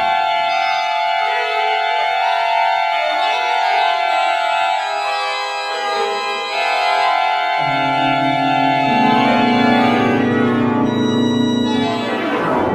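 Pipe organ playing long held chords, with low bass notes coming in about halfway through; the chord is released right at the end.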